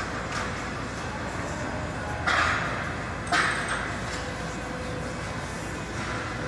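Gym room noise with two short, sharp noisy sounds about a second apart, the second with a faint metallic ring.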